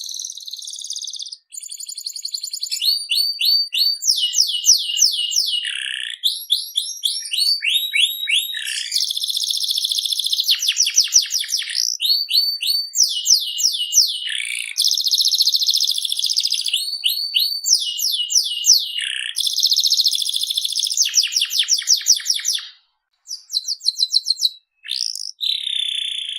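Domestic canary singing at length: fast runs of repeated high notes, one run after another in rolling trills, with brief pauses about a second in and again near the end.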